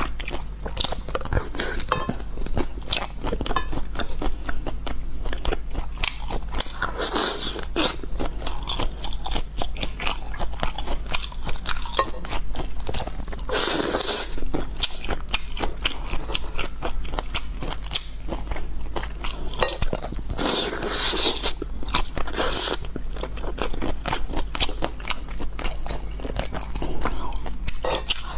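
Close-miked chewing and biting of crunchy food: a steady run of small crackling crunches, with louder bites about a quarter, halfway and three quarters of the way through.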